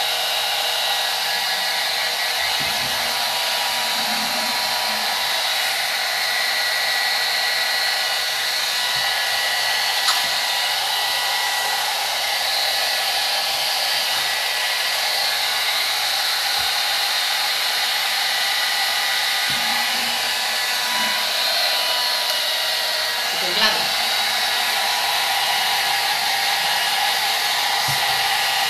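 Hand-held hair dryer running steadily: a rush of air with a steady motor whine over it, drying a damp paste coating on a bottle. Two brief clicks come through along the way.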